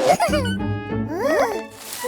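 Children's cartoon music with squeaky, swooping character vocalizations that rise and fall in pitch, once near the start and again about a second in.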